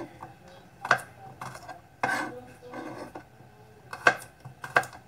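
Kitchen knife chopping peeled garlic cloves on a cutting surface: about five irregular, sharp knife strikes, with brief scraping between them.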